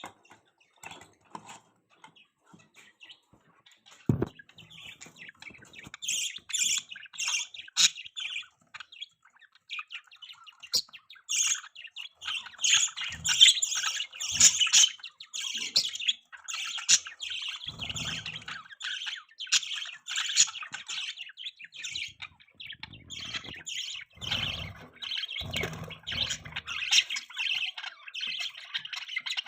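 A flock of pet budgerigars chirping and chattering: scattered chirps at first, then rapid, near-continuous warbling from about six seconds in. A single knock comes about four seconds in.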